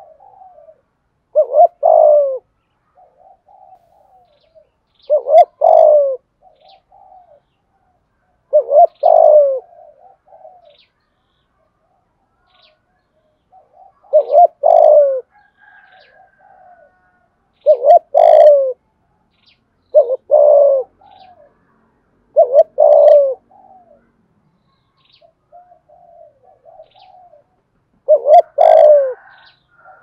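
Spotted dove cooing its crowing call, eight loud, low phrases a few seconds apart, each a short note followed by a longer one. Fainter, softer coos come between the phrases.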